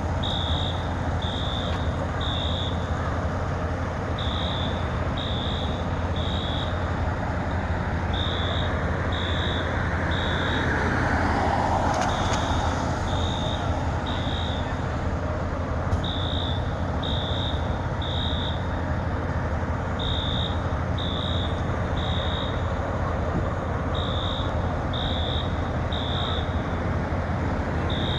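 Building fire alarm sounding the temporal-three evacuation signal: three short high beeps, a pause, and again about every four seconds. Under it runs the steady low rumble of idling fire apparatus engines, with a brief swell of noise a little before the middle.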